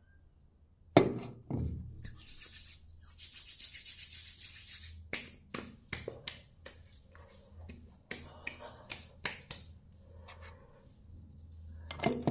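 Hands applying aftershave to a freshly shaved face: a sharp slap about a second in, then palms rubbing together for a few seconds, then a run of quick pats and slaps on the face and neck.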